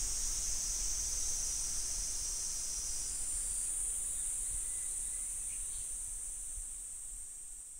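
Cicadas droning in a steady high buzz that shifts a little in pitch about three seconds in and fades away near the end.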